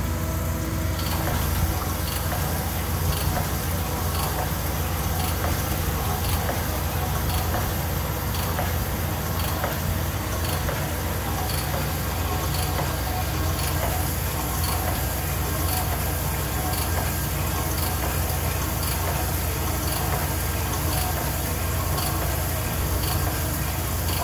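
Sunnen honing machine running as it hones a small-block Chevrolet cylinder: a steady motor hum with honing oil pouring and the stones grinding in the bore as the hone strokes up and down, and a faint tick about once a second.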